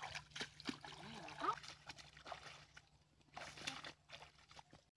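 Footsteps in rubber boots wading into shallow floodwater through wet grass, making a series of short, irregular splashes and sloshes.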